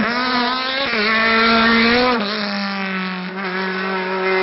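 Sports-prototype race car's engine at high revs, accelerating hard out of a hairpin. The note dips briefly about a second in and steps down to a steady lower pitch about two seconds in as it changes up a gear, then holds as the car pulls away.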